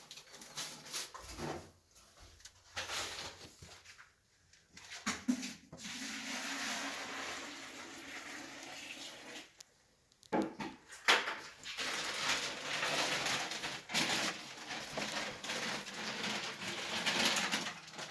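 Intermittent knocks and long rough scraping, with clattering like broken tile and rubble, during the demolition of an old bathroom. The sound echoes as in a small bare room.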